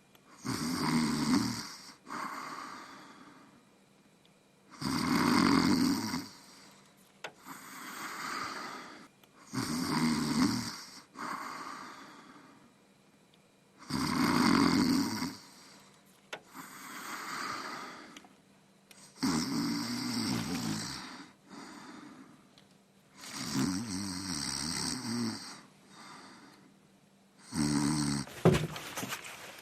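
Heavy snoring: a loud, rasping snore about every four to five seconds, each followed by a softer breath, seven cycles in all.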